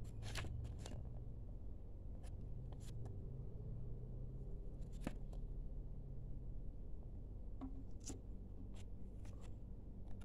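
Paper quick start guide leaflets being handled and turned over in the hands, giving short crinkles and rustles every second or so over a steady low hum.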